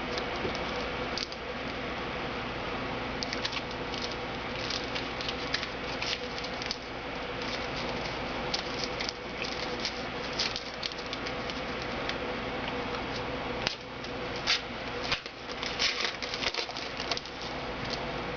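Football trading cards and their packaging being handled, with scattered clicks and crackling rustles that come in two busy stretches, one a few seconds in and one near the end, over a steady hiss and faint hum.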